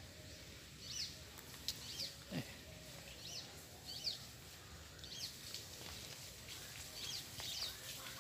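Bird chirping outdoors: about nine short, high notes at irregular intervals over faint background hiss.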